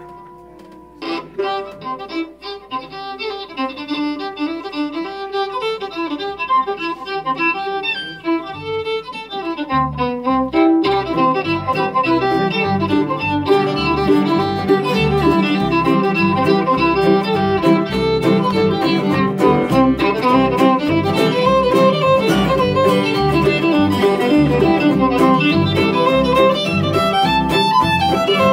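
A fiddle starts a tune alone, and about ten seconds in the rest of the string band comes in under it with bass, guitar and mandolin, playing on together.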